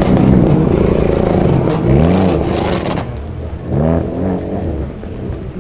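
Car engine running and briefly revved three times, each blip rising and falling in pitch, about two seconds apart; it grows quieter after about three seconds.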